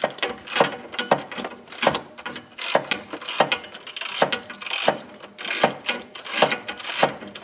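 Socket wrench ratchet clicking in repeated strokes as it is swung back and forth, turning a 13 mm nut off an exhaust stud on a golf cart engine.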